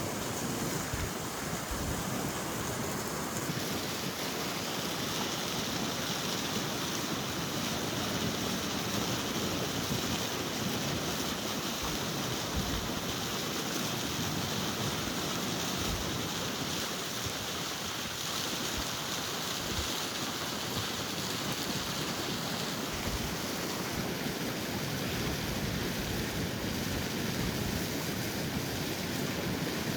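Ocean surf breaking and washing ashore as a steady, unbroken rush, with wind now and then thumping on the microphone.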